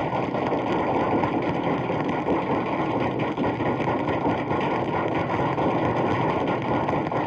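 Crowd applause: dense, steady clapping from many hands, sounding muffled and narrow as played back from an old 78 rpm sound-effects record.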